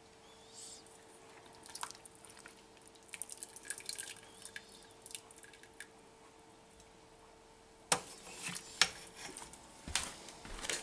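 Broth dripping and splashing off a serving utensil as potatoes are lifted out of a pressure cooker's pot, with faint light clinks, then a few sharp knocks of the utensil on the cookware about eight and ten seconds in.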